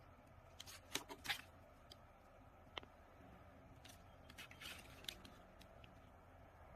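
Faint handling sounds of small objects: a quick cluster of clicks and scrapes about a second in, a single click near three seconds, then rustling with a few clicks around four to five seconds.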